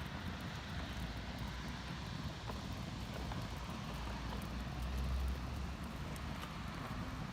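Steady outdoor background noise with a low rumble that swells about four seconds in, and a few faint clicks.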